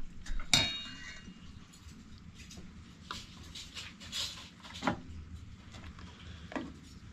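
Kitchen crockery and cookware clinking as the soup is stirred and served. There is a sharp ringing clink about half a second in, then a few lighter knocks and clinks.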